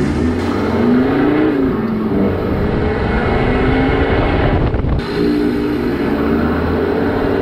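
Ford PX Ranger's engine pulling under load on the road, heard from outside the body beside the 4-inch snorkel intake, its pitch climbing and then dropping as it changes gear, over steady wind and road noise. The sound breaks off abruptly about five seconds in and carries straight on.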